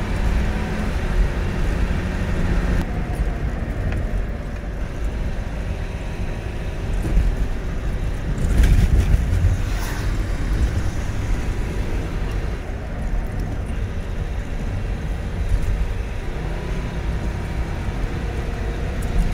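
Steady engine drone and road rumble heard inside the cab of a moving camper van, with a louder noisy stretch about nine seconds in.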